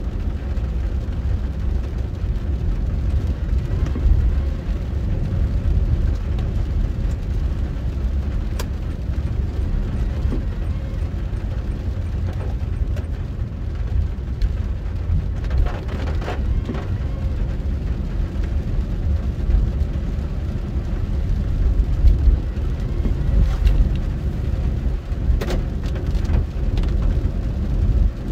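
Car driving on a wet road in the rain, heard from inside the cabin: a steady low rumble of engine and tyres, with rain on the car and a few sharp ticks.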